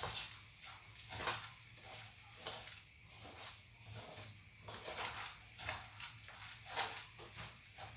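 Wooden spatula stirring and scraping parboiled rice as it dry-roasts in a frying pan: a rhythmic swish of grains against the pan, about two to three strokes a second.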